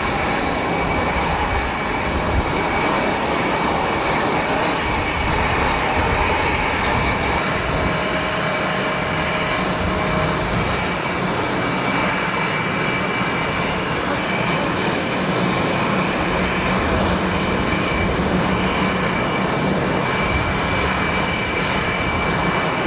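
Jet aircraft engine running steadily: an even rushing noise with a high turbine whine on top, neither rising nor falling.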